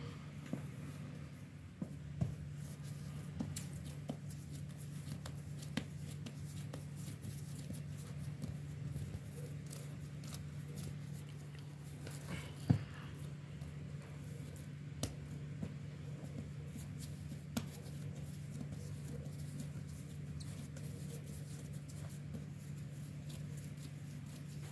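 Hands dividing and rounding bread dough: soft rubbing and patting of dough on a floured cloth, with scattered light taps and one sharp knock about halfway through, over a steady low hum.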